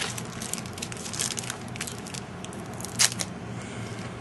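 Foil wrapper of a trading-card pack crinkling and crackling in the hands as the pack is handled and opened, with one louder snap about three seconds in.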